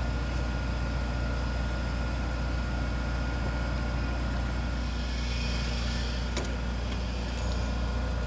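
A machine running steadily with a low, unchanging drone. A faint hiss rises briefly about five seconds in, and a single click follows about six and a half seconds in.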